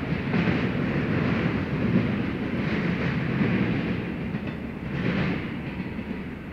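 BNSF freight train's cars rolling past on the track: a steady rumble of steel wheels on rail, swelling every second or so, easing off slightly near the end.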